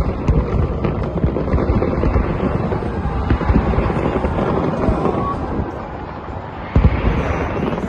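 Fireworks going off in a dense, continuous run of booms and crackles, with a sudden loud bang near the end.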